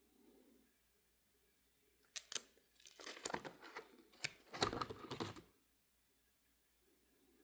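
Crinkling and rustling as cards and their notebook pages are handled, in a run of sharp crackles from about two seconds in to about five and a half seconds in.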